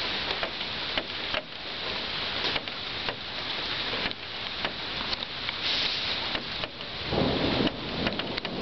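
Steady rain falling, with many sharp drop hits close by. A low rumble of thunder rises about seven seconds in.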